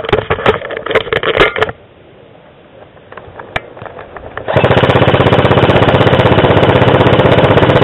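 Airsoft electric rifle firing one long full-auto burst of about four seconds, a fast, even rattle that starts about halfway through. Before it, a second or so of irregular clattering knocks, then a short lull.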